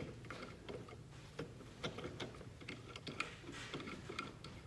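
Light, irregular clicks and taps of steel bolts being fitted through the bolt holes of a Peerless 100 differential's two halves, metal knocking on metal as the parts are lined up.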